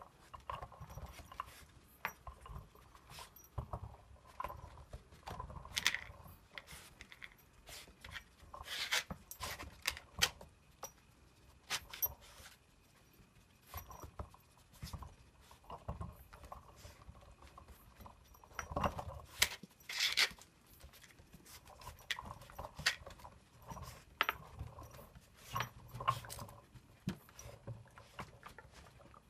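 Dog working at an activity toy: scattered clicks, knocks and rattles, some in quick clusters, the loudest about nine seconds in and again around nineteen to twenty seconds in.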